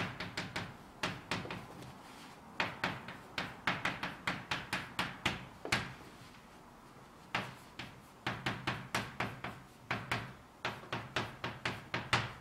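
Chalk on a blackboard as Japanese characters are written: runs of quick, sharp taps and short strokes, with a pause of about a second and a half near the middle.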